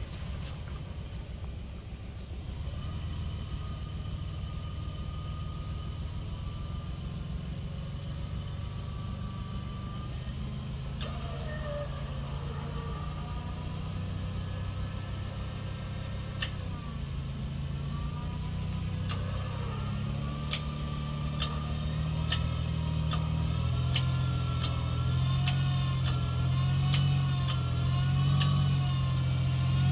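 Rock-crawling 3rd gen Toyota 4Runner on one-ton axles working its way up a ledge: the engine runs steadily under load, then revs climb and grow louder in the second half, with a wavering whine over it. A run of sharp clicks joins in the last part.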